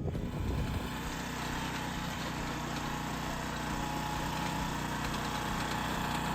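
Small gasoline engine of a walk-behind lawn aerator running steadily at constant speed.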